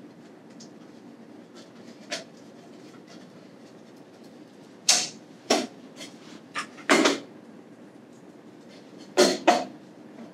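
Scattered knocks and clinks of metal pipe fittings, a pressure gauge and hand tools being handled on a workbench while gauges are fitted to a sprinkler valve's trim. There are about seven short knocks, the loudest coming in pairs about halfway through and near the end.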